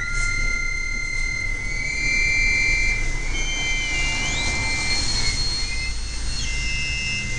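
Korg analog synthesizers (Monotribe, Monotron, Volca Keys) playing an improvised loop: several held high-pitched tones that glide up and down in pitch, with a burst of hiss about four to five seconds in, over a low rumbling bass.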